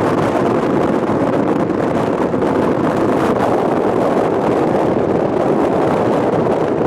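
Strong wind buffeting the camcorder's built-in microphone: a loud, steady rumbling rush that never lets up.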